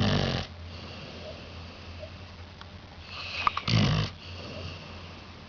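Snoring: two loud, rasping snores about three and a half seconds apart, each following a hissing in-breath.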